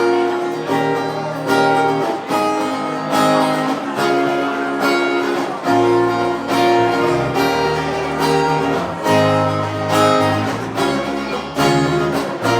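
Instrumental band music: strummed and plucked acoustic guitars playing a steady repeating pattern, with a low bass part coming in about halfway through.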